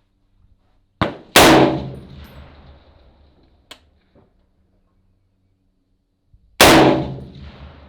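Two .308 rifle shots from an FN SCAR 17S about five seconds apart, each a loud crack that rings out and fades over about a second. A sharper, shorter crack comes just before the first shot.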